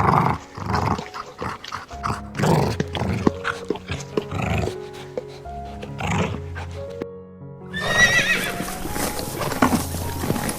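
Background music with held notes runs through the first part, mixed with animal sounds. A little after halfway there is a brief gap, then a loud animal call falling in pitch, followed by scuffling.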